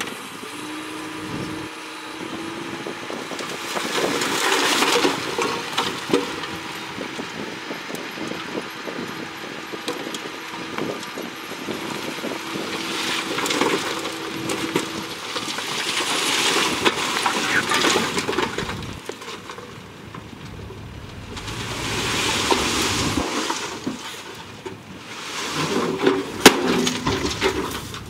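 Dump truck tipping its load of rock and dirt: the bed rises with a steady low whine through the first half, then rocks and earth slide and tumble out in several rushing surges, with a sharp crack near the end.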